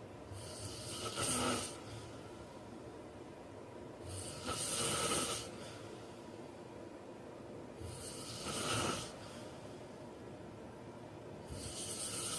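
A heavy-set man snoring in his sleep: four rasping snores, each about a second long, coming evenly every three and a half to four seconds.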